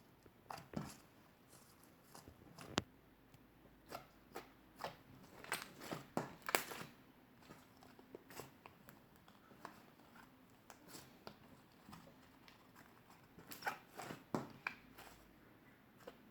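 Clay slime being squeezed and pressed by hand: irregular sticky clicks and crackles in clusters, busiest about five to seven seconds in and again near the end.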